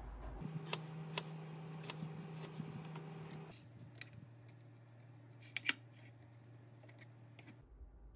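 Faint clicks and taps of kitchen utensils over a low steady hum: first a knife working a melon on a plastic cutting board, then a wooden spoon scraping melon pulp through a stainless steel mesh strainer, with a sharp double tap against the strainer about five and a half seconds in.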